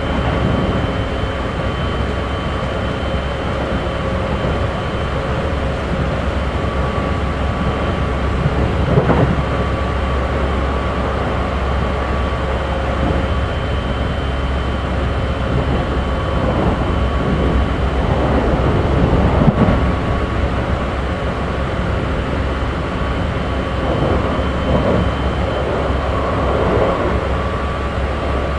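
Keikyu 1500 series electric train with Mitsubishi GTO-VVVF inverter, running at a steady speed between stations, heard from inside the motor car: a continuous rumble of wheels on rail with a faint, steady whine at fixed pitch and a few louder rattles along the way.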